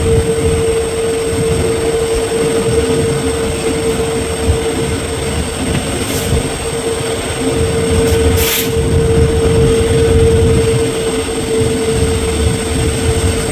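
Passenger train running behind an EMD WDP4 diesel locomotive: a steady rumble from the coach on the track with a constant humming tone. Two brief sharp noises come about six and eight and a half seconds in.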